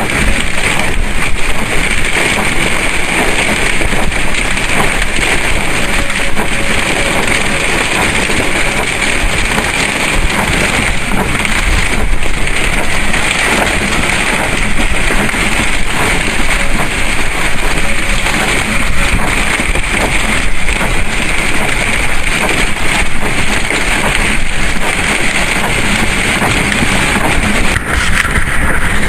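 Strong storm wind buffeting the microphone: a loud, steady rushing roar that holds unbroken throughout.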